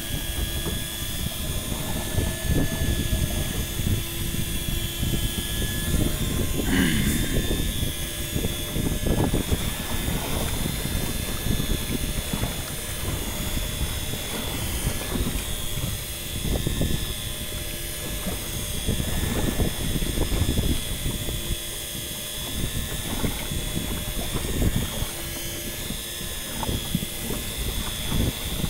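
Choppy sea water sloshing and splashing against a small boat's stern and added transom well, in uneven swells, with wind on the microphone and a faint steady hum of the boat's Suzuki outboard engine. The water washes in at the low transom because the outboard sits too low and close to it.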